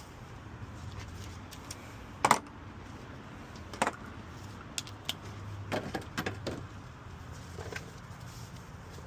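Scattered metallic clinks and knocks of hand tools and bolts against car parts during an alternator installation, over a steady low hum. The loudest is a sharp knock a little over two seconds in, with another near four seconds and a quick cluster around six seconds.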